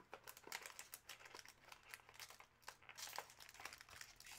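Faint crinkling of a foil-wrapped hockey card pack as it is pulled from its box and handled, a run of small irregular crackles.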